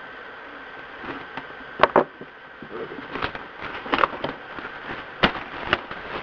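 Cardboard box being opened by hand: crackling and rustling of cardboard and tape, with several sharp snaps, the loudest two close together about two seconds in.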